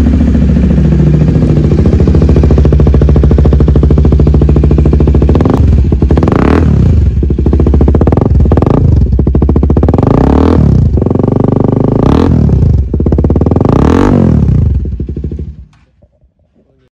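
KTM RC390's single-cylinder engine breathing through a Yoshimura R77 aftermarket exhaust: idling steadily, then blipped about five times with quick rises and falls in pitch, then shut off near the end.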